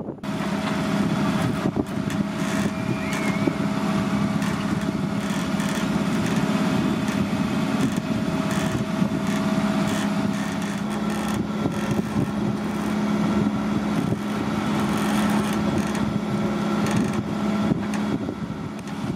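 A boat's motor running steadily at an even speed with a constant low hum, over wind and water noise.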